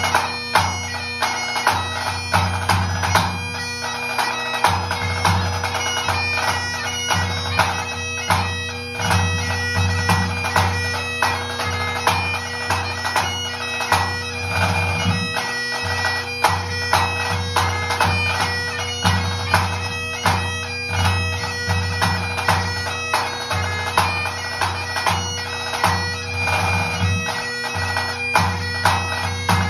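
Great Highland bagpipe playing a tune over its steady drones, with a tenor drum struck by felt mallets in regular strokes keeping the beat of the pipe tune.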